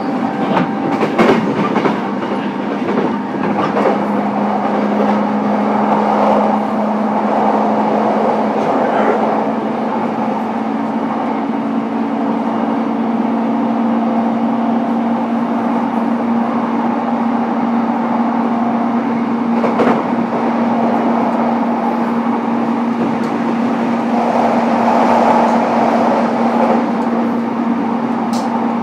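JR East E233 series electric train running, heard from inside the carriage: a steady rumble of wheels on rail under a constant hum, with a few sharp clicks about a second in and again near twenty seconds.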